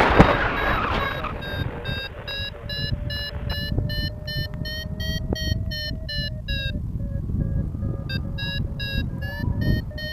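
Paragliding variometer beeping about three times a second, its pitch rising and falling slightly; this is the climb tone that signals the glider is rising in lift. The beeping breaks off for about a second past the middle and then resumes, and wind buffets the microphone at the start.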